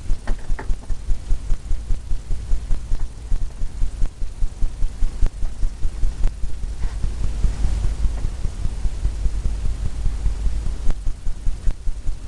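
Two-inch paint brush tapped repeatedly against a stretched canvas, dull low thumps about four times a second.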